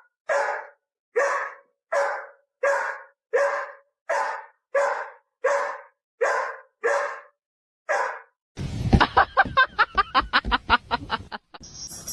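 A dog barking steadily, about twelve barks spaced a little under a second apart. After about eight and a half seconds it gives way to a louder, fast clatter of about seven knocks a second for roughly three seconds.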